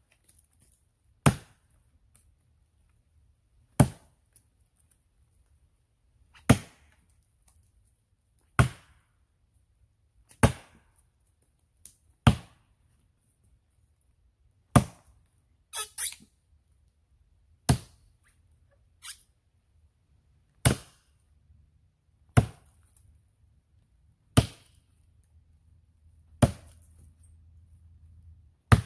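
A 4.5 lb axe chopping into the trunk of a small standing maple: sharp, loud blows, one about every two seconds, each with a short ring.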